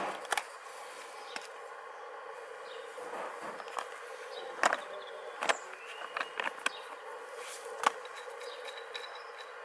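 Metal CV joint parts being handled and set down on cardboard: scattered sharp clicks and knocks, the loudest about halfway through and near the end, over a steady background hum.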